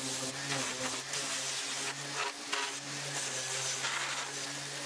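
Electric orbital sander running against the edge of a sheet-metal dashboard panel, smoothing out saw marks: a steady motor hum with a sanding hiss that dips briefly a few times.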